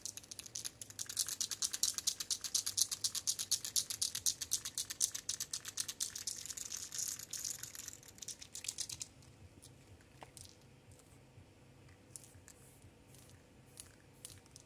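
Aerosol spray paint can being shaken hard, its mixing ball rattling in a rapid, even rhythm; the shaking stops about nine seconds in, followed by a few light taps and clicks.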